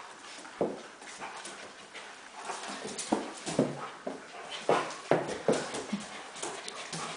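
Two dogs, a Doberman and a long-haired puppy, play-fighting: a string of short whimpers and yips, several falling in pitch, coming more often after about two seconds.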